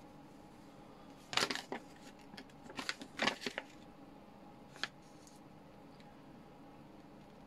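Paper instruction leaflet rustling as it is handled and unfolded: two short spells of crackling about one and three seconds in, and one brief crackle near five seconds.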